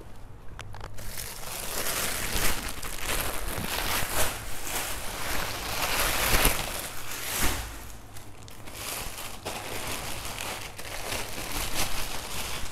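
Clear plastic bags crinkling and rustling as shoes are handled and pushed into and pulled out of them, with a couple of knocks about halfway through.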